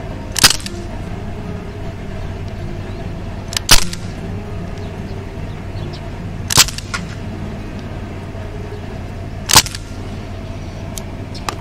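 Crosman DPMS Panther Arms SBR CO2 BB rifle fired four times in single-shot mode, each shot a sharp crack, about three seconds apart, over a steady background hum.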